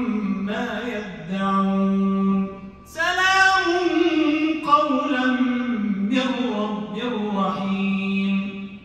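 A man reciting the Quran aloud in the melodic, chanted tajweed style, drawing out long held notes with ornamented glides. He pauses briefly for breath about three seconds in, and the phrase tails off near the end.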